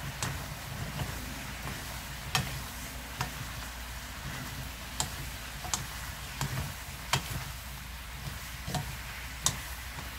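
Sliced mushrooms, bell peppers and fried tofu sizzling in a frying pan while a wooden spatula stir-fries them, with several sharp clicks of the spatula against the pan at irregular moments.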